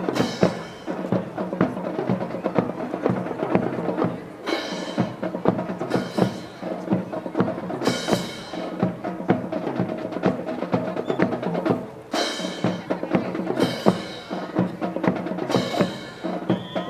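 Band music with drums, with dense sharp percussive clacks throughout and a louder crash every couple of seconds, accompanying a drill team's routine.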